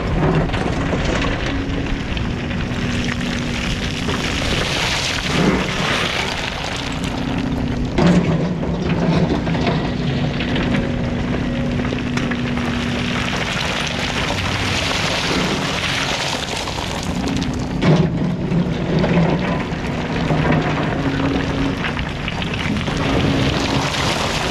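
Volvo EC300EL hybrid excavator running under load, its engine and hydraulics humming with a pitch that shifts as the boom works, while the bucket digs into a pile of broken rock and the stones clatter and grind against it.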